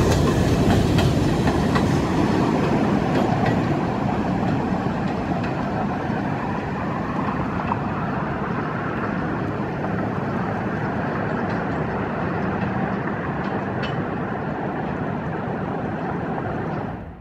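New York City Subway R62A train running on the rails: a steady rumble with a few light clicks, easing a little quieter after the first few seconds, then cutting off suddenly near the end.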